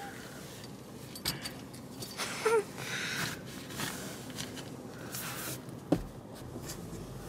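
Low, steady car cabin noise with fabric rustling, a soft knock about a second in and another about six seconds in, and a brief high squeak about two and a half seconds in.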